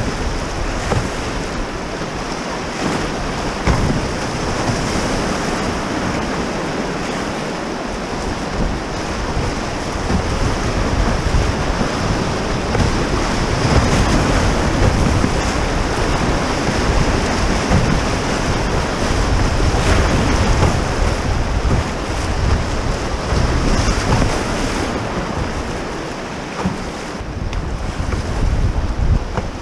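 Rushing river rapids heard from a canoe running them: steady churning whitewater with waves splashing against the hull and wind buffeting the microphone. It is loudest in the middle, where the canoe runs through the biggest waves, and eases a little near the end.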